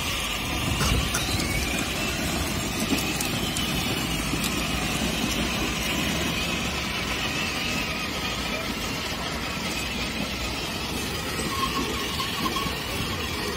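Children's battery-powered ride-on toy car driving over paving stones: a steady rumble of its plastic wheels on the stones with its small electric motor running.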